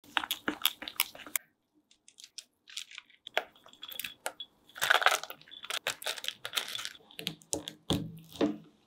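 Close-up baking sounds in quick succession: a wire whisk beating brownie batter, clicking rapidly against a glass bowl; walnut pieces tumbling onto batter in a pan; then a knife cutting down through a baked brownie with a dull thud onto a wooden board near the end.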